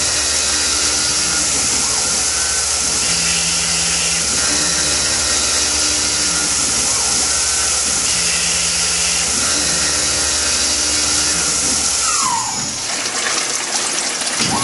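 Tormach PCNC 1100 CNC mill finishing pockets in 6061 aluminium soft jaws with a carbide end mill under flood coolant: a steady hiss of coolant spray over the spindle's hum, with a pattern of tones repeating every three to four seconds. About twelve seconds in, the cut ends: the hum stops, a falling whine follows as the spindle winds down, and the coolant spray dies away.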